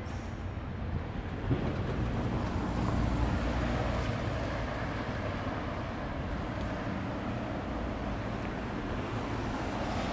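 Steady city street noise: a low traffic rumble that swells a little a couple of seconds in.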